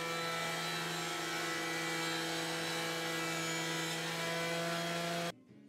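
Delta benchtop thickness planer running, a steady motor whine over an even hiss, used with a sled to put a straight edge on a board. It cuts off suddenly near the end.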